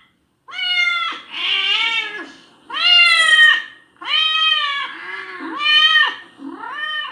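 Recording of a domestic cat meowing repeatedly, about seven meows in a row, each rising and then falling in pitch.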